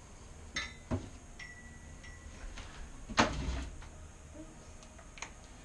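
Scattered light clicks and knocks of tools and wood being handled at a drill press table, with one louder knock about three seconds in.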